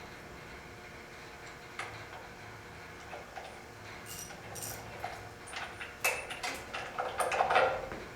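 Scattered metallic clicks and clinks of hand tools working on a boiler's door clamps and bolts, sparse at first and busier in the second half, over a steady hum.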